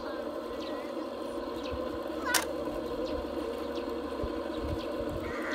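Radio-controlled Cat D10T bulldozer model crawling forward on its tracks, with a steady mechanical hum. Birds chirp now and then, one sharp chirp about two and a half seconds in.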